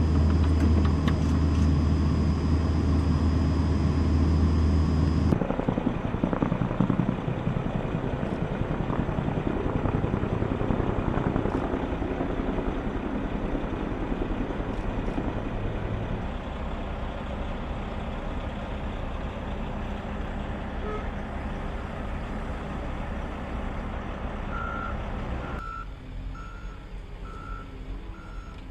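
Steady engine noise that changes abruptly a couple of times, with a run of evenly spaced short high beeps, about two a second, near the end, like a vehicle's reversing alarm.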